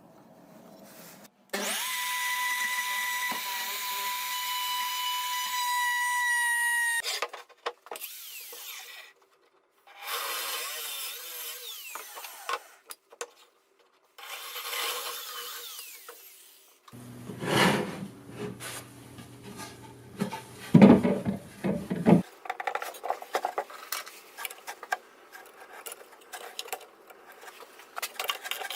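Homemade power tool driven by a washing-machine motor, running with a steady high whine, then working wood in several short segments with scraping, rumbling and clattering.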